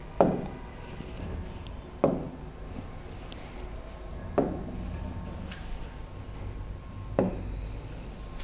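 Four knocks of a hand tapping on a large interactive touchscreen display, about two seconds apart, each with a short ring. A faint high hiss sets in with the last tap.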